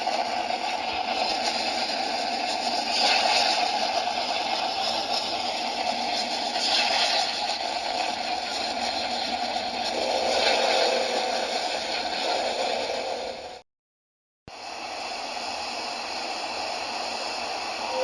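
A planetary 'space sound' (spacecraft radio data turned into audio): a steady rushing hiss with slow swells. It cuts off suddenly about three-quarters of the way through, and after a brief gap a second, similar rushing noise begins.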